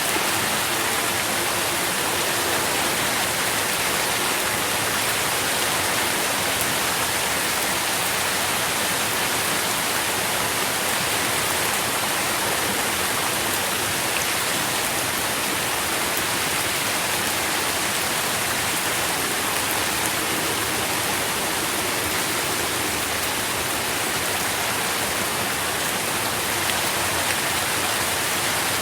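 Steady rain falling, an even hiss of drops with no breaks or individual knocks standing out.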